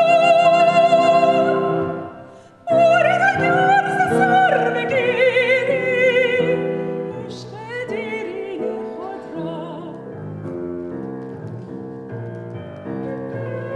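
Female operatic soprano singing long held notes with wide vibrato over piano accompaniment, with a short break for breath about two seconds in. After about seven seconds the voice stops and the piano plays on alone, and a flute comes in near the end.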